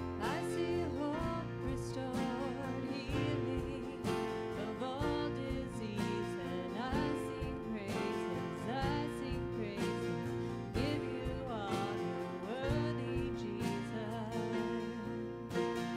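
Live worship band playing a song: drum kit, electric and acoustic guitars, with a lead melody that slides and bends in pitch over held chords.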